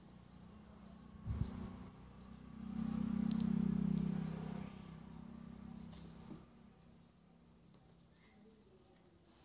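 A bird chirping over and over, a short high chirp about every two-thirds of a second, over a low steady hum that swells for a couple of seconds in the middle and then fades. A short low thump comes about a second in.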